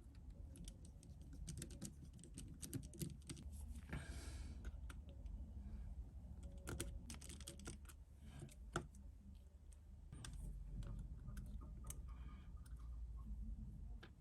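Irregular small clicks and taps of precision repair tools on an iPhone 7's tiny parts and screws, with a brief scraping hiss about four seconds in, over a low steady hum.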